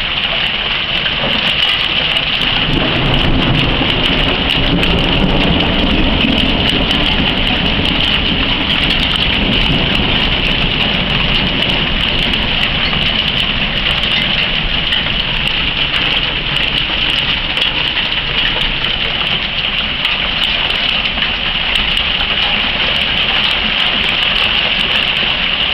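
Heavy rain mixed with pea-size hail falling steadily, a dense even hiss with many small, sharp hailstone hits.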